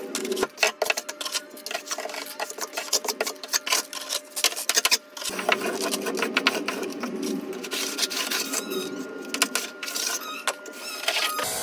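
Steel trowel and wooden float working sand-and-cement mortar on a shower bench. Quick scraping and tapping strokes for about the first five seconds, then steadier rubbing as the mud is floated flat along the metal edge trim.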